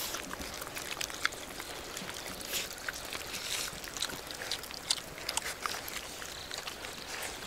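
Dogs eating grilled fish off the bone at close range: irregular wet chewing, licking and smacking with sharp little clicks of teeth on bone.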